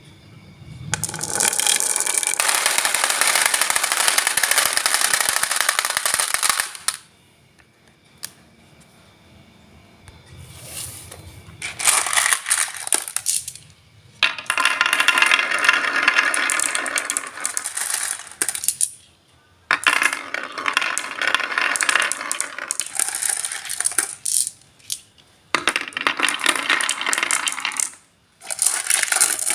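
Wood fire crackling and popping in a fireplace, a dense run of sharp snaps. It comes in loud stretches of several seconds with brief fainter lulls between them.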